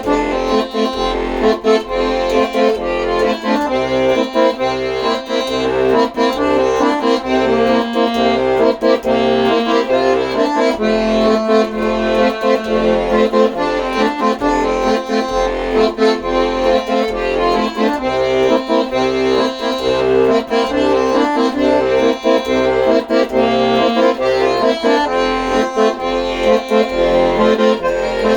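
Accordion playing a melody over held chords, with a steady pulsing bass underneath.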